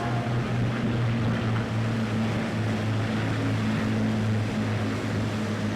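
Piston-engined propeller aircraft passing, its engines making a steady low drone over a broad rushing noise.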